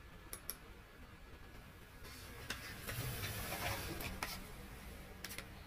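A few faint, sharp clicks: a quick pair about half a second in, single clicks later on, and another quick pair near the end. A soft rustling hiss rises in the middle.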